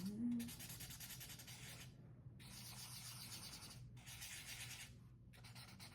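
Marker tip rubbing across paper in long colouring strokes, a steady scratchy hiss broken by brief pauses every one to two seconds.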